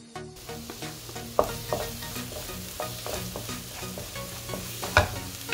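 Onion, ginger-garlic paste and chilli masala sizzling in hot oil in a pan while a wooden spatula stirs and scrapes it, with sharper scrapes about 1.4 s and 5 s in. The masala is being sautéed to cook off the raw smell of the ginger-garlic paste.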